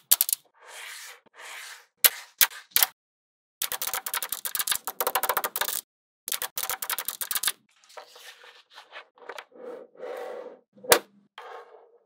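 Small magnetic balls clicking and snapping together: single sharp clicks, then two long runs of rapid clicking, one about four to six seconds in and another around six to seven seconds, followed by softer rattling and sliding with a loud click near the end.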